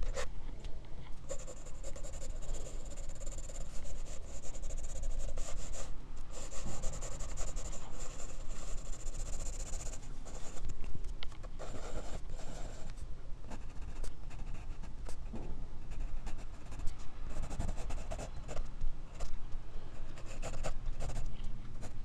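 Graphite pencil scratching across drawing paper as it sketches and shades. There is long continuous stroking for the first half, then shorter, separate strokes.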